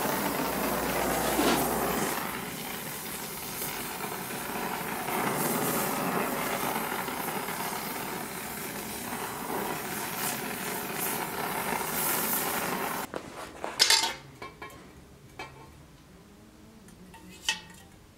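Oxy-acetylene torch flame hissing steadily as it is played along a bronze sword blade to heat it. Near the end the hiss cuts off and a few sharp knocks follow.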